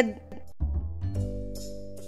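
Background music: an instrumental track with a low drum hit about half a second in, then held notes over soft ticking percussion at about three ticks a second.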